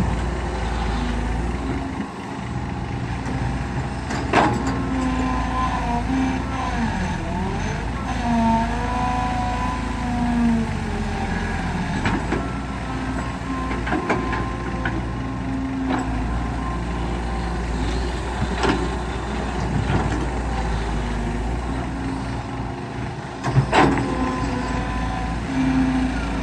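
Hydraulic excavator's diesel engine running under load as the machine swings and digs, with a hydraulic whine that rises and falls in pitch. Several sharp clunks of the bucket and soil, the loudest near the end.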